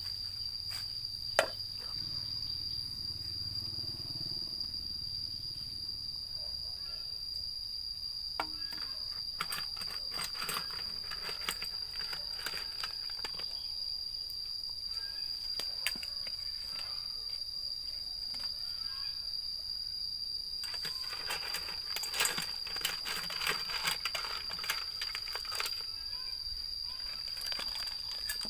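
Steady, high-pitched insect drone, like crickets, with scattered clicks and taps over it. There is one sharp knock about a second and a half in, and the clicking gets busier near the end.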